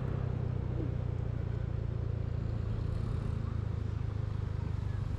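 A vehicle's engine running at a steady low hum while driving along, with even road noise underneath.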